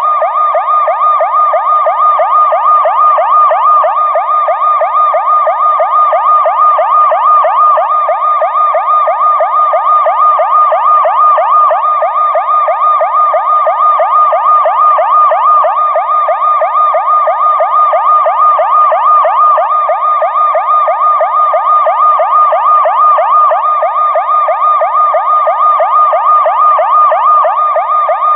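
Police siren sound effect played in reverse: a fast electronic yelp whose pitch sweeps up and down about five times a second, loud and unbroken.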